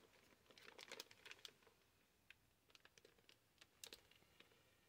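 Faint crinkling and small clicks of a clear plastic bag around a soldering-kit case being handled, in scattered clusters that are busiest about a second in and again just before four seconds.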